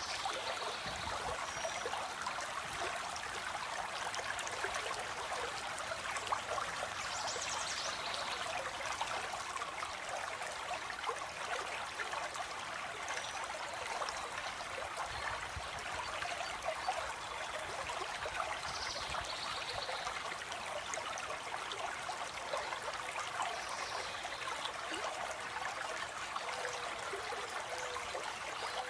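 A stream of water flowing and trickling steadily, with a few brief, high-pitched bird calls scattered through it.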